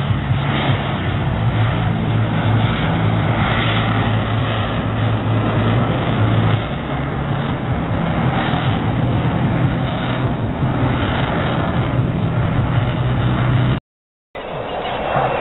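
A fighter jet's engine noise from a distant pass, a steady loud rush, with a low hum under it for about the first half. The sound cuts out for a moment near the end.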